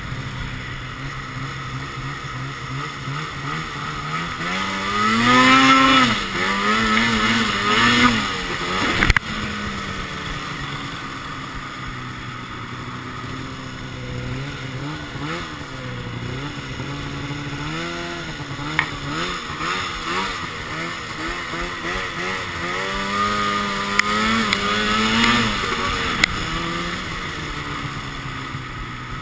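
2012 Arctic Cat XF 800 snowmobile's two-stroke twin running through a Sno Stuff aftermarket silencer while being ridden. It revs up hard about five seconds in, again near eight seconds and again about twenty-four seconds in, and drops back between the pulls. There is a sharp tick just after the second rev.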